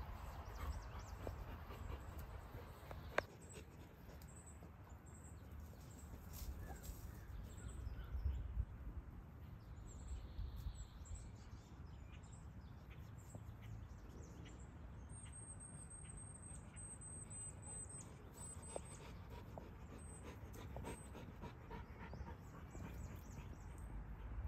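A dog sniffing and snuffling through grass, over a faint low rumble. A little past the middle comes a quick run of high bird chirps.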